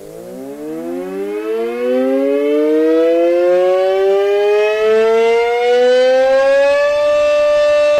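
Outdoor severe weather warning siren winding up: two tones sound together, rising steadily in pitch for about seven seconds, then holding steady near the end.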